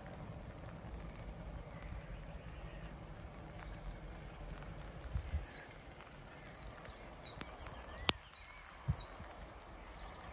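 A small songbird singing a run of repeated, quickly falling high chirps, about three a second, over a low rumble. A single sharp click, the loudest sound, comes a little past the middle.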